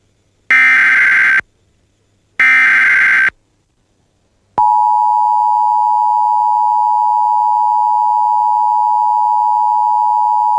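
Emergency Alert System tones: two roughly one-second bursts of SAME digital header data, about two seconds apart, which encode the alert. After a short gap, the steady two-tone EAS attention signal starts about four and a half seconds in and holds, announcing that an emergency alert message follows.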